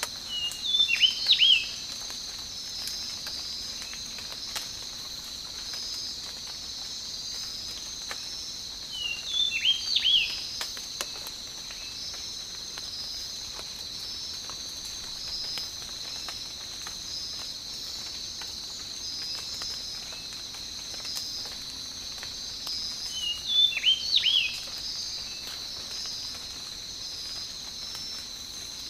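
Tropical night-time ambience: a steady chorus of crickets or similar insects, a constant high buzz with evenly pulsing chirps, over a light patter of rain drops. A bird breaks in three times with a short flurry of quick sliding notes, about a second in, around ten seconds and around twenty-four seconds.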